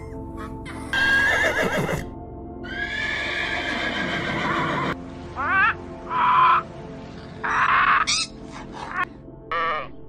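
A donkey braying in two long, wavering calls, followed from about halfway through by a parrot giving a series of short squawks, all over steady background music.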